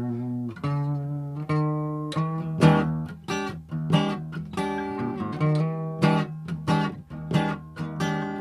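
Acoustic guitar strumming chords as the introduction to a song.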